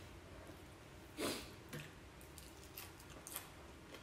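Quiet hand-eating sounds: fingers tearing fresh herb leaves and mixing them into rice, with a few small clicks and one louder short rustle just after a second in.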